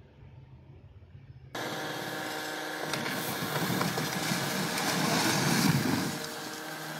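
After a faint low hum, concrete cracks and collapses: chunks of concrete fall with a few sharp knocks, and a low rumbling crash is loudest around five to six seconds in. A steady engine hum runs under it.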